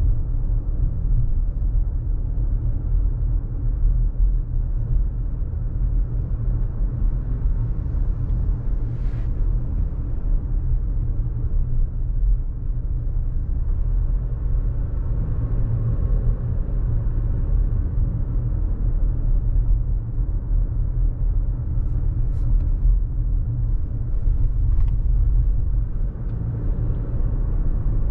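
Car driving along, a steady low rumble of road and engine noise, with a few faint brief ticks.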